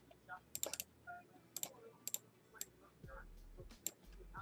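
Computer mouse and keyboard clicks as names are pasted into a spreadsheet: a quick run of several clicks about half a second in, then single clicks every half second or so.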